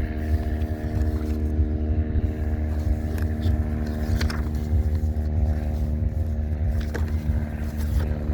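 A steady mechanical hum on one unchanging pitch over a low rumble, with a few faint clicks.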